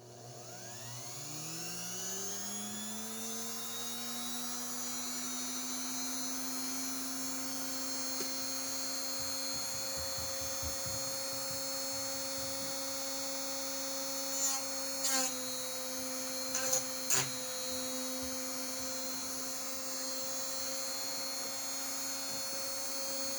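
Dremel rotary tool mounted in a homemade drill press, spinning up to speed and then running with a steady whine. There are four short, louder bursts about two-thirds of the way through.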